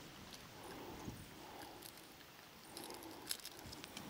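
Faint handling sounds of a small snook being unhooked by hand: a few light clicks of the lure and hooks, the clearest a little after three seconds in, over a quiet background.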